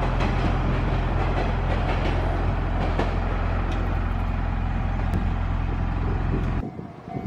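Electric train close by, a steady low hum with noise over it, as it sits or runs at the platform. The sound cuts off abruptly about six and a half seconds in, leaving quieter background with a few knocks.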